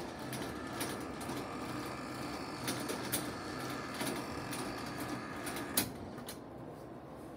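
Electric hospital bed's motor running steadily as the bed is lowered to its lowest position, stopping with a click about six seconds in.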